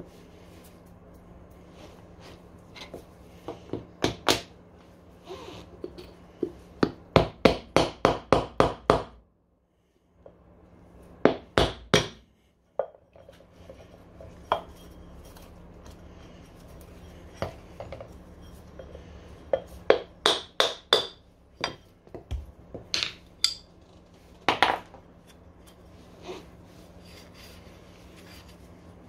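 Sharp metallic strikes of a hammer tapping on metal while the rear hub motor bearings of a Segway Ninebot G30 Max are replaced, with a quick run of about ten blows a few seconds in. Scattered single knocks and clinks come before and after it.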